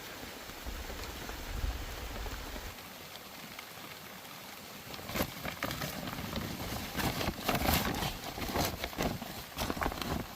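Rain falling with a steady hiss. From about halfway through, a quick irregular run of sharp knocks and clicks joins it.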